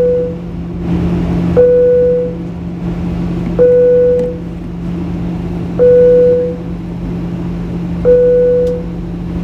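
Airliner cabin chime sounding five times, about two seconds apart, each a short high note falling to a longer lower tone, over the steady hum of the cabin in flight.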